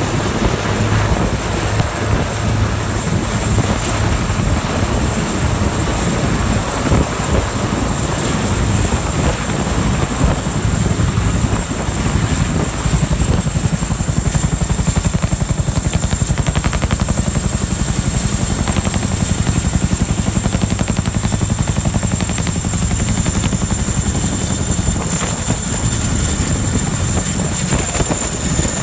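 Military helicopters running close by: heavy rotor blades beating steadily with a steady high turbine whine, a Super Puma-type helicopter near the start and a CH-47 Chinook's tandem rotors near the end.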